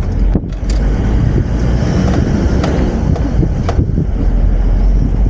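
Toyota Land Cruiser 70 (HZJ71V) heard through open windows at low road speed: a steady low engine and road rumble with wind noise and a few sharp ticks. The driver is listening for a rhythmic shari-shari noise from the left-side wheel that keeps time with the tyre's rotation, but it does not stand out clearly.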